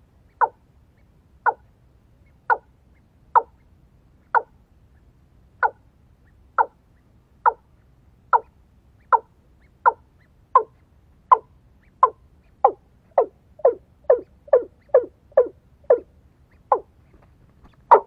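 Watercock calls: a series of short, sharp notes, each dropping in pitch. They come about once a second, quicken to two or three a second, then slow again near the end.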